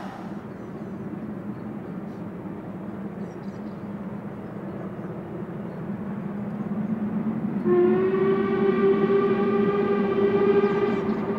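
A steam locomotive approaching out of sight: a steady low rumble grows louder, then about two-thirds of the way in its whistle sounds one long note for about three seconds, stepping up in pitch as it opens.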